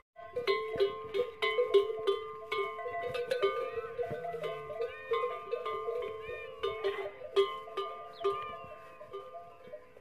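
Bells hung on camels' necks clanking irregularly as the herd moves, several bells of different pitches ringing over one another. The clanking grows fainter toward the end.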